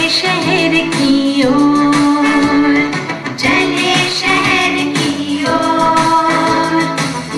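Music: a song with singing over instrumental accompaniment.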